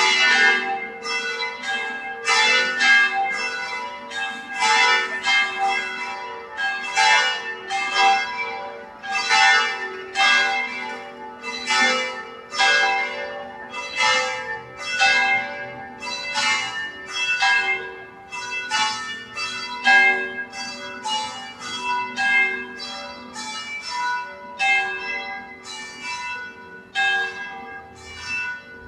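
Church bells ringing a wedding peal: several bells struck in quick, overlapping succession, roughly two strikes a second, with the lower bells humming on steadily underneath.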